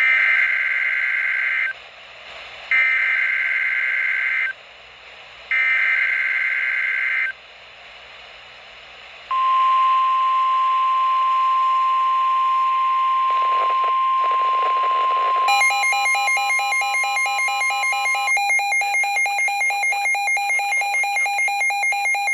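NOAA Weather Radio emergency alert signal: three short buzzy SAME digital header bursts, then the long steady 1050 Hz warning alarm tone, marking the start of a warning broadcast. About halfway through, a pulsing electronic alarm beeping three to four times a second joins in and carries on after the steady tone stops.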